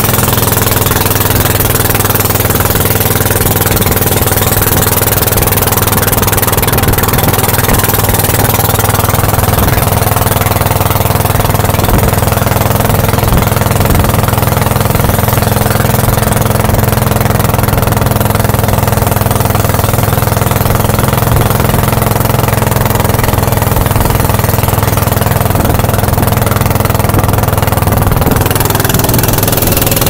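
A boat's engine running steadily at an even speed, loud and close, as the boat moves across the water.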